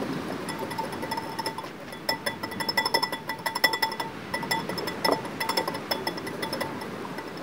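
Mayonnaise being beaten by hand in a bowl: quick, irregular clinks of the utensil against the bowl, each leaving a brief ring, growing busier about two seconds in.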